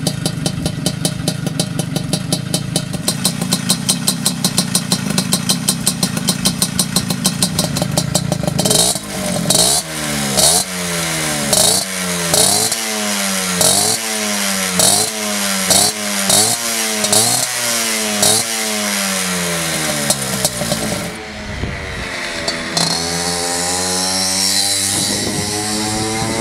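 Puch Maxi S moped's small single-cylinder two-stroke engine breathing through a Proma GP exhaust: it idles steadily for about eight seconds, then is revved in short blips about once a second. Near the end it rides off, the pitch rising again and again as it accelerates.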